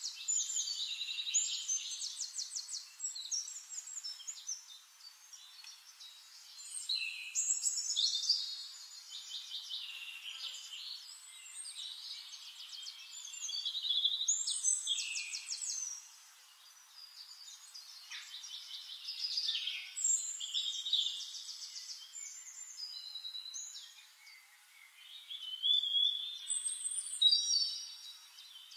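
Songbirds singing high, complex songs with rapid trills, a song phrase of a couple of seconds every five or six seconds.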